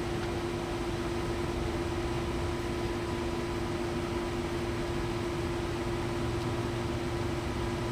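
Steady mechanical hum with a constant pitched tone over low rumble and hiss, unchanging throughout.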